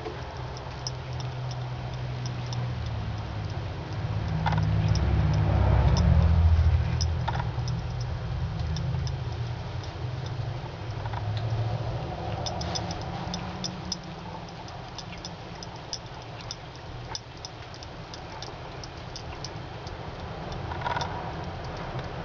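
A cat licking water from a trickling faucet: light, irregular clicks and ticks, closer together around the middle. Under them runs a low rumble that swells about four to seven seconds in.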